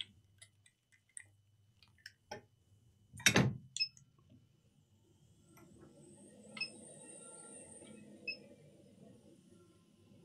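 A few light clicks and a knock, then from about six seconds the steady airflow hiss of a hot air rework station, with a faint high whine, heating the flux-covered chip to desolder it.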